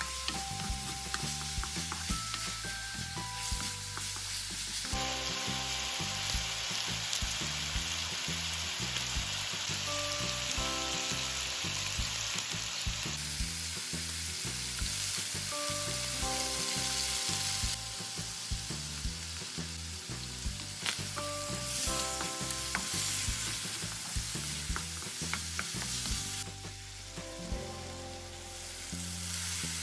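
Pork belly cubes sizzling in hot oil in a wok on high flame as their fat renders, stirred with a wooden spatula that knocks and scrapes against the pan now and then.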